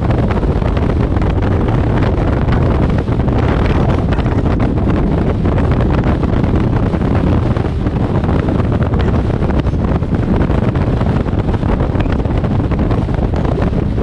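Steady wind rush buffeting the microphone of a camera mounted on the outside of a moving car, mixed with the car's road and tyre noise.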